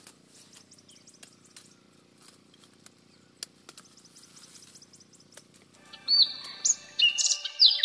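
Faint scattered clicks and a few high chirps over a low steady hum, then about six seconds in loud music starts, with sliding, chirp-like whistles over held tones.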